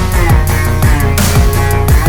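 Background music: a heavy rock-style instrumental with deep bass, drum hits and sustained guitar notes, without vocals.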